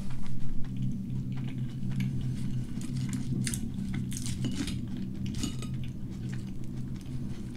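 Onion rings being picked over and moved about on a ceramic plate, with several light clicks and scrapes of the rings and fingers against the plate between about three and five and a half seconds in.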